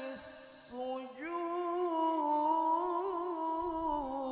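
A man reciting the Quran in a melodic, high-voiced mujawwad style. A brief hiss, then from about a second in he holds one long ornamented note whose pitch wavers and turns.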